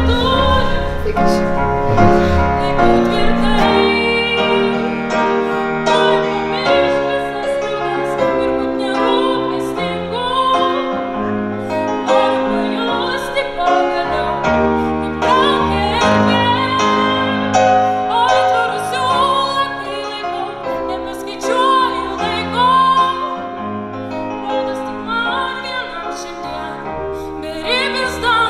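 Background music: a song with a singing voice over piano.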